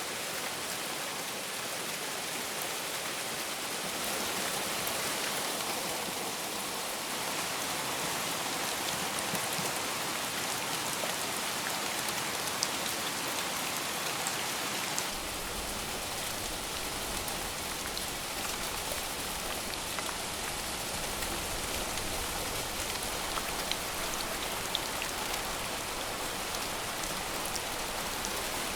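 Heavy rain falling steadily: an even hiss with scattered louder drop ticks. About halfway through, the sound deepens as a low rumble joins underneath.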